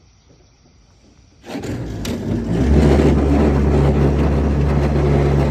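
Boat motor opening up about a second and a half in, building over about a second to a loud, steady run.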